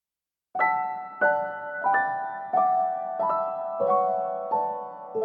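Background music: soft piano chords struck about every two-thirds of a second, each fading before the next, starting about half a second in.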